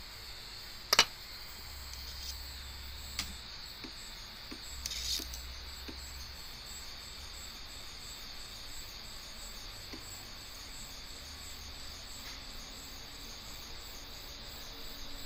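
Portabee 3D printer's extruder stepper motor feeding filament through the hot end: a faint, steady high whine with soft ticks. A sharp click comes about a second in, a smaller one near three seconds, and a brief hiss about five seconds in.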